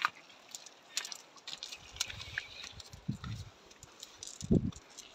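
Cast net being handled on rock: scattered small clicks and rustles, with a few low thumps, the loudest about four and a half seconds in.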